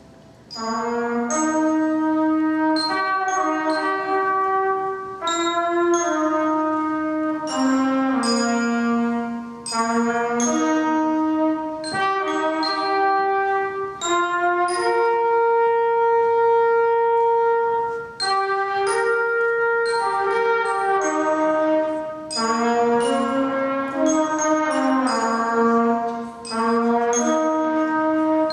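Live instrumental duet: two melody instruments play held notes in harmony, moving note by note in phrases with short breaks between them.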